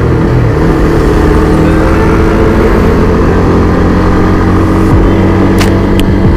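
Motorcycle engine running at a steady cruise while riding on the road, its note holding an even pitch, with road and wind noise around it.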